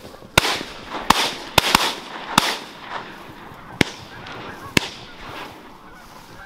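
A rapid volley of about seven shotgun shots from several hunters firing at flushing geese, the shots coming close together in the first two and a half seconds and then two more spaced out. Geese honk as the flock takes off.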